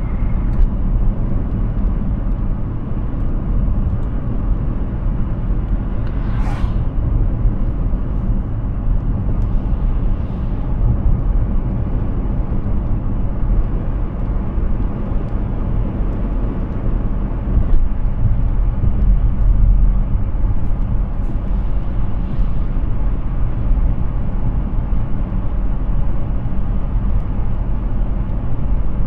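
Road and tyre noise of a Hyundai Ioniq 6 electric car driving at speed, a steady low rumble with no engine note. About six seconds in, a brief whoosh rises and fades, with fainter ones later.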